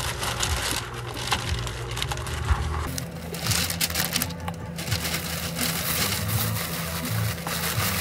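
Takeout packaging being handled: lidded paper drink cups pressed into molded pulp cup carriers and plastic wrap crinkling, a run of small knocks, scrapes and rustles over a low steady hum. The sound changes about three seconds in.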